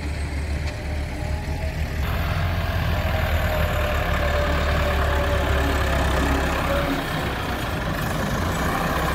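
Diesel engine of a tractor front loader running as it lifts and tips a bucket of silica sand, with a deep hum that turns louder and busier about two seconds in. The low hum drops away near the end.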